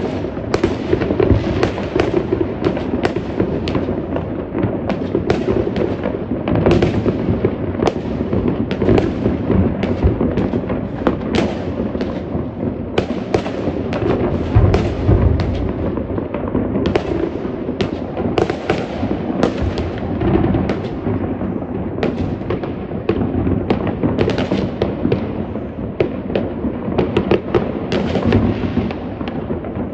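Dense fireworks going off without a break: many overlapping bangs and sharp cracks over a continuous low rumble of more distant bursts.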